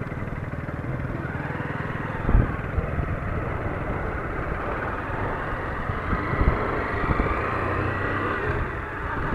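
Honda motorcycle engine running steadily while riding along a dirt road, with a sharp thump about two seconds in.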